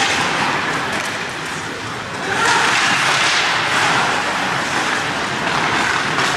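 Ice hockey game noise: a steady hiss of skates scraping and carving the ice with rink noise, getting louder about two seconds in.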